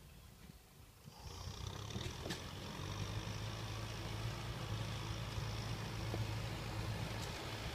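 Tractor engine running steadily while the tractor works the soil with its rear implement, a low droning hum with a rushing noise over it. It comes in louder about a second in.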